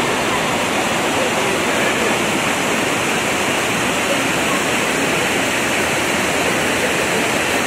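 Revson Fountain's jets splashing down into its basin: a loud, steady rush of falling water.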